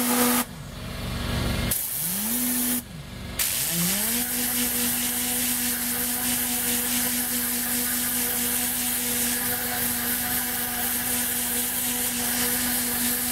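Tornador air cleaning gun blasting compressed air and water into a carpet floor mat: a hiss with the whir of its spinning nozzle tube, which winds down each time the trigger is released and spins back up when it is pulled. Two short blasts in the first three seconds, then a steady blast from about three and a half seconds in, with the air compressor running.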